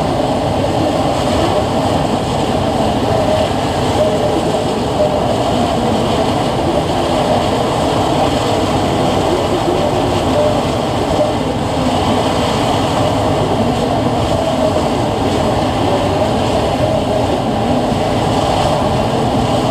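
Steady, loud engine roar that runs unbroken, with no clear rise or fall in pitch.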